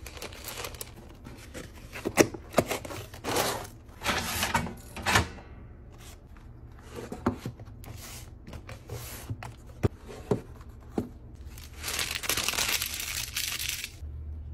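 Hands packing a cardboard mailer box: tissue paper crinkling, sharp taps and knocks as the cardboard flaps are folded shut, and paper tape being torn and pressed down, with a longer stretch of rustling near the end.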